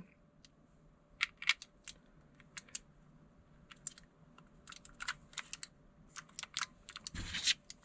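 Quiet, irregular plastic clicks and taps from handling a wireless mechanical numpad, with a brief louder rustle about seven seconds in.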